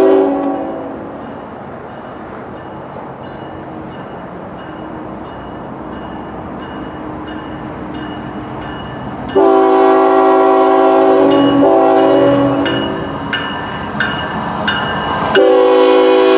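Diesel freight locomotive approaching, sounding its air horn in several notes at once: a blast dying away at the start, a long blast about nine seconds in, and another starting about a second before the end. Between the blasts the train's rumble grows steadily louder as it nears.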